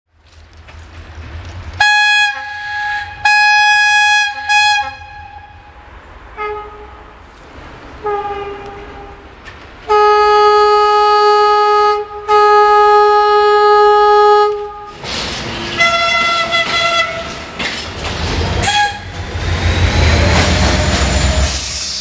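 Railway locomotive horns sounding a string of blasts that differ in pitch: short ones at first, then two long blasts in the middle. Near the end comes the rumble and wheel clatter of a passing train.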